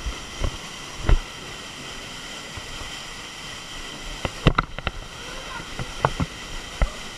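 Waterfall rushing steadily, with several sharp knocks: one about a second in, a quick cluster a little past the middle and two more near the end.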